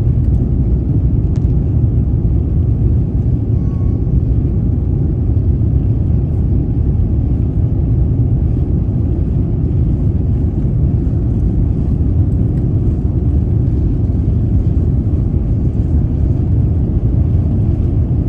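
Steady, deep cabin noise inside an Airbus A350-900 airliner in flight: the rush of airflow and its Rolls-Royce Trent XWB engines, heard from an economy seat.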